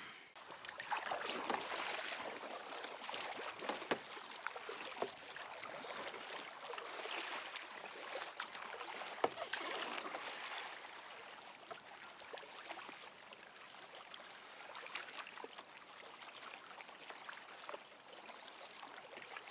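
Water sloshing and trickling against a fishing kayak's hull as it moves through the water, swelling and fading every couple of seconds, with a few light knocks.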